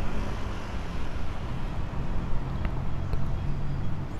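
Road traffic on a city street: a steady rumble of cars passing with a low engine hum.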